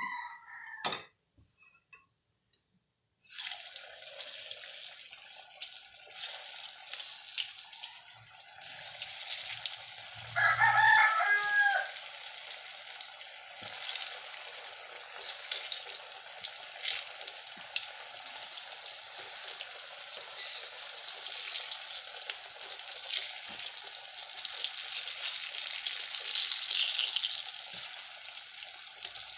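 Battered banana pakoras deep-frying in a kadhai of hot oil: a few clicks, then a steady loud sizzle that starts abruptly about three seconds in as the pieces go into the oil. A short pitched call with a rising and falling pitch sounds over the sizzle about ten seconds in.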